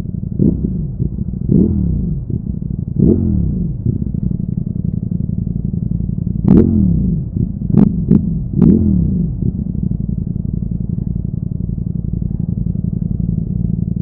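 Ducati Streetfighter V4 S's 1103 cc V4 engine idling, blipped several times so that the revs jump and fall back to idle. The loudest blips, with sharp cracks, come about halfway through in a quick cluster of three or four.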